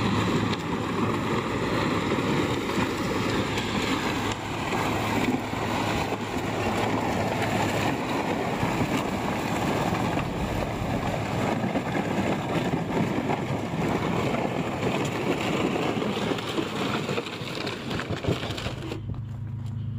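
A loaded plastic pickup bed liner dragged like a sled over sandy dirt behind a slow-moving pickup truck: a steady rough scraping, with the truck's engine running under it. Near the end the scraping stops suddenly as the truck halts, leaving the low hum of the engine.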